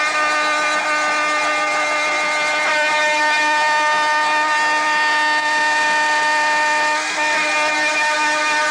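A loud, steady horn-like tone, held without a break over a background of noise.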